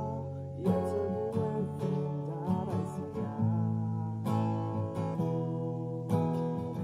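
A man singing to his own strummed acoustic guitar: chords struck every second or so under a sliding sung melody.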